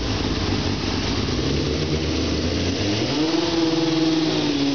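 Four-cylinder engine of a tube-frame race car idling steadily; about three seconds in its speed rises and holds at a slightly higher pitch.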